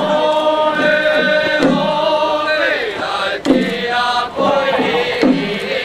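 Ritual chanting in long, drawn-out held notes, about three of them, each bending at its end before the next begins.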